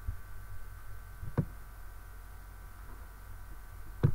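Three faint computer mouse clicks over a steady low electrical hum, the loudest about a second and a half in.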